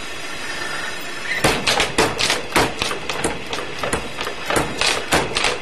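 ABNO Nr.1 mechanical power hammer striking hot steel: a quick, uneven run of about fifteen blows starting about a second and a half in, over a steady hum.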